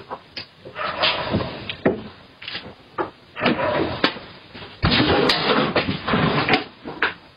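Repeated knocks and scrapes of a chair being jostled, then a longer stretch of scraping and thumps about five seconds in as a man slides off the chair onto the ground.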